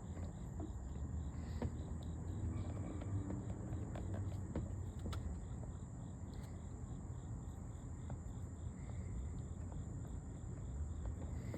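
Crickets chirping from the riverbank: a steady high trill, joined about halfway through by a slower chirp repeating about three times a second, over a low rumble and a few faint ticks.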